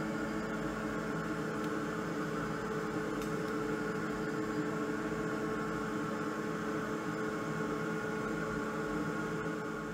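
Steady whirring hum of the fans on a diode laser engraver setup: the enclosure's wall-mounted exhaust fan and the laser machine running, with a few constant tones in the hum.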